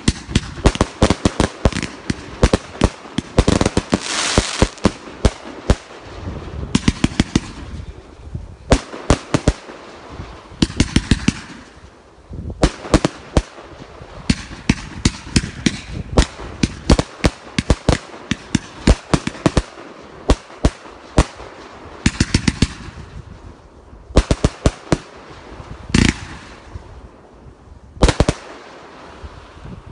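The Guv'nor, a Men Shun 1.3G compound firework cake, firing continuously: rapid volleys of shots launching and bursting, several a second, with a brief lull a little before halfway.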